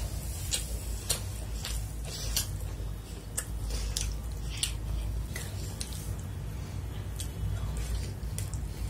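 Close-miked eating sounds of chicken fried rice eaten by hand: wet chewing with sharp mouth clicks coming every half second or so at irregular intervals, over a low steady hum.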